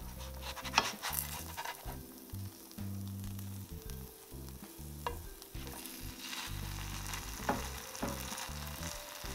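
Butter sizzling in a skillet under a buttered grilled cheese sandwich as it is turned and pressed down, with a few sharp clicks; the loudest comes about a second in and others near the end.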